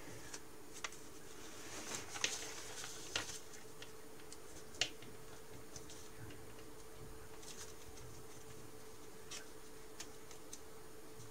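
A sheet of origami paper, about 20 cm square, being folded and creased by hand: scattered crisp crackles and ticks, the sharpest about two and five seconds in, over a faint steady hum.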